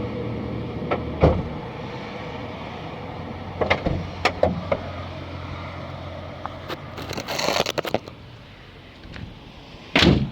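Audi 80 B1's EA827 inline four-cylinder engine running steadily at idle. Its hum fades out about halfway through. Scattered clicks and knocks come through it, a short rustling noise comes about seven seconds in, and a loud thump near the end, like a car door shutting.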